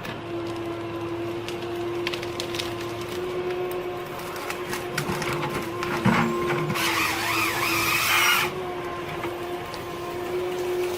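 Heavy forestry machinery running with a steady hum and scattered clicks and knocks. A louder, wavering whine comes in about seven seconds in and stops a second and a half later.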